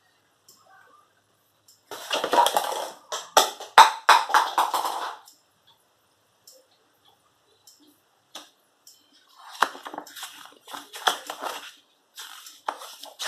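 Whole black peppercorns rattling and clattering against a hard container in two bursts of scattered clicks, with a pause between them.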